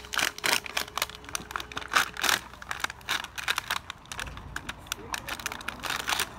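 Toy packaging crinkling and rustling in quick, irregular bursts as it is handled and opened, busiest in the first couple of seconds and again near the end.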